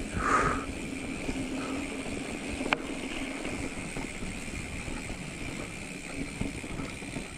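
Giant Trance X 29 full-suspension mountain bike rolling fast downhill on a dry dirt trail: steady tyre and bike noise with a constant hum, and a sharp click about two and a half seconds in.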